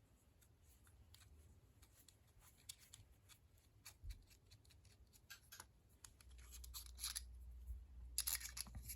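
Faint small clicks and handling noise of a small aluminium pen being turned over in the hands, with a quick run of louder clicks near the end.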